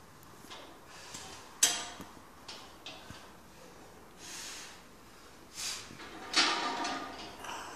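Leg curl machine knocking sharply about one and a half seconds in, with a few lighter clicks, then several hard, forceful breaths from the lifter as he works through the reps. The loudest breath near the end is strained and partly voiced.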